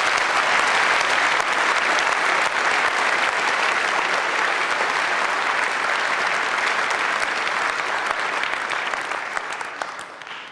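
Audience applauding, a dense patter of many hands clapping, which fades away near the end.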